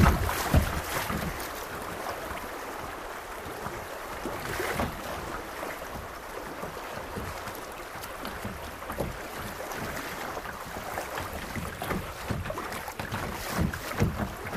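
Creek water rushing and splashing around a moving kayak, with irregular low thumps and wind buffeting the camera microphone; the thumps are loudest at the start and near the end.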